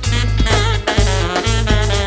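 Live jazz band playing: a saxophone improvising over electric guitar, drum kit and a heavy, repeating bass line.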